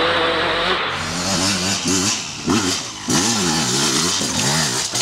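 KTM 200 EXC two-stroke single-cylinder dirt bike engine, held at steady revs at first and then revved up and down repeatedly as the throttle is opened and closed.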